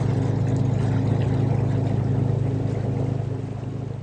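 Motor yacht's diesel engine running at steady cruising speed: a low, even drone with water rushing along the hull, easing off slightly near the end.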